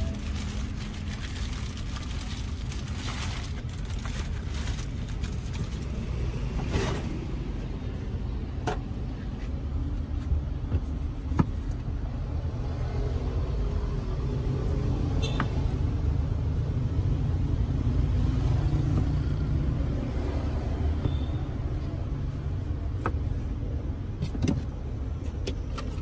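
Steady low rumble of road traffic that grows a little louder past the middle, with a few sharp clicks and taps from a knife cutting oranges on a cutting board.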